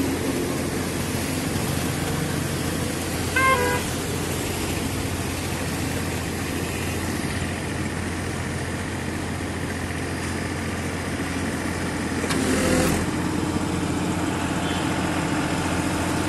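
Tractor diesel engine running steadily, driving a hydraulic wood splitter's pump through the PTO shaft. A vehicle horn toots briefly about three and a half seconds in, and the sound swells briefly about twelve and a half seconds in.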